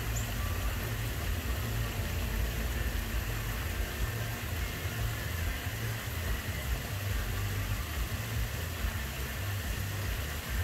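Continuous low rumble under an even hiss of falling water from a small pond waterfall.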